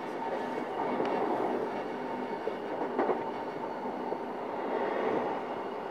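Saikyo Line E233-7000 series electric train running, heard from inside motor car MoHa E233-7415: a steady rumble of wheels on rail with a faint steady whine. A few brief clicks come about one and three seconds in.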